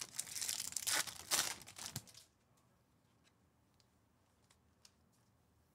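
Foil wrapper of a trading-card pack torn open and crinkled, in several rustling swells over about two seconds, then a few faint light clicks.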